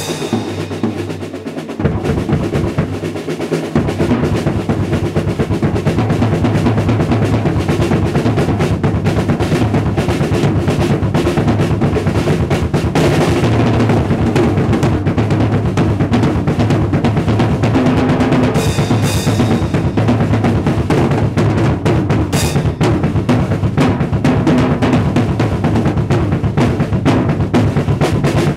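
Drum kit played in a fast solo with sticks: dense rolls on the snare and toms over the bass drum. The playing is lighter for the first couple of seconds, then stays busy, with a few cymbal crashes about two-thirds of the way through.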